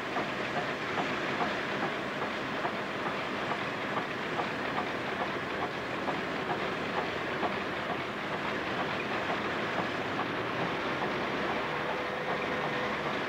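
Steady mechanical clatter and hiss of sawmill machinery running, with faint ticks spread through it.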